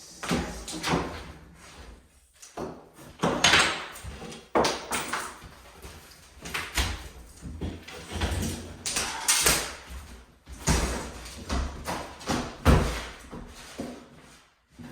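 Wooden kitchen cabinets being pried and torn out: irregular bangs, knocks and scraping of wood, a dozen or so hits at uneven spacing with short lulls between them.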